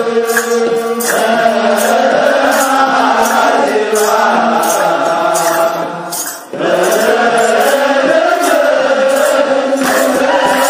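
Ethiopian Orthodox wereb: a group of men chanting together, with sharp rhythmic beats of hand claps about two a second. The sound briefly drops away about six seconds in, then returns.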